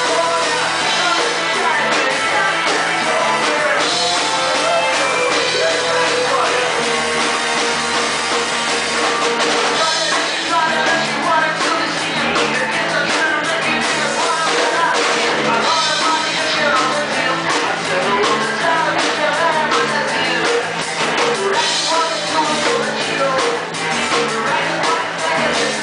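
Live rock band playing: electric guitar and drum kit, with a man singing.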